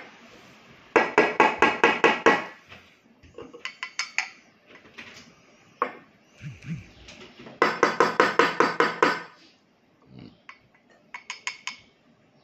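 Fast metallic tapping at a freshly filled bottomless espresso portafilter, settling the ground coffee in the basket. It comes in two runs of about ten quick taps, roughly seven a second, with a few scattered clinks between.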